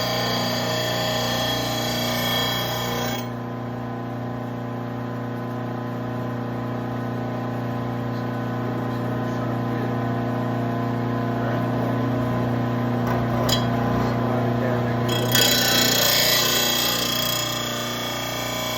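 Electric mower-blade sharpener running with a steady motor hum while a mower blade is ground against its wheel. A loud grinding hiss goes for about the first three seconds, drops away, and comes back for the last few seconds.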